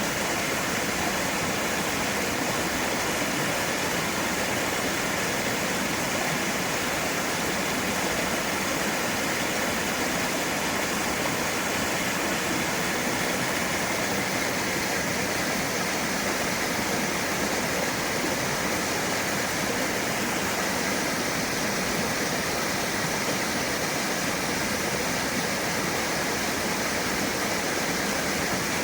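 Steady rush of flowing water, an even, unbroken noise that does not change.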